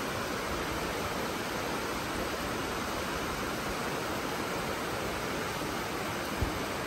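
Steady rain falling, an even hiss. A single brief low thump about six and a half seconds in.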